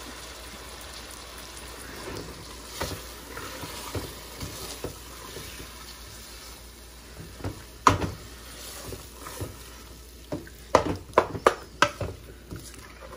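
Chicken keema frying in a large metal pot with a steady sizzle, stirred with a wooden spoon that scrapes and knocks against the pot. The loudest knock comes about eight seconds in, and a quick run of knocks follows near the end.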